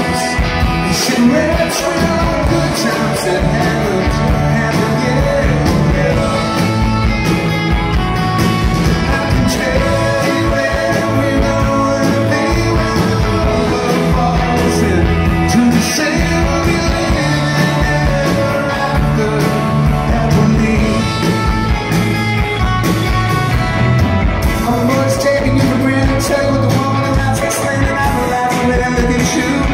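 Live rock band playing: a male lead vocal sung over electric guitars, drums and keyboard, steady and loud.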